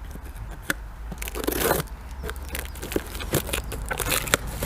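Cardboard box and packing material being handled and rummaged through, with irregular crinkling, scraping and tapping.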